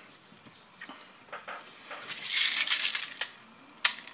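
Loading 0.20 g airsoft BBs into an airsoft pistol magazine with a clear plastic speedloader. Small plastic clicks, then a dense rattle of BBs about two seconds in lasting about a second, and a few sharp clicks near the end.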